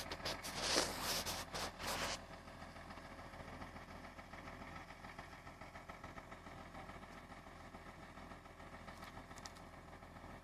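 Wheel excavator's diesel engine running steadily. In the first two seconds there is a burst of loud, harsh clattering noise over it.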